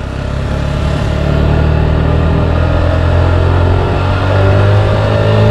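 Motorcycle engines running as the bikes pull away and pick up speed, the engine note rising about four seconds in.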